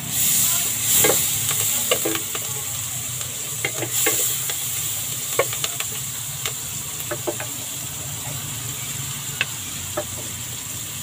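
Chopped vegetables frying in hot oil in a pan, sizzling steadily, louder for about the first second. A wooden spatula stirs the pan, with scattered sharp clicks and knocks of the spatula on the pan.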